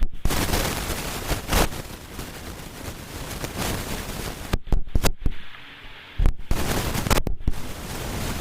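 Loud gusting wind buffeting the microphone, rising and falling, with the sound cutting out briefly several times in the second half.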